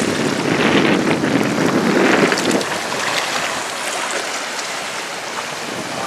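Wind blowing over the camera microphone with seawater washing against the rocky shore, a stronger rush for the first two and a half seconds, then a steady wash.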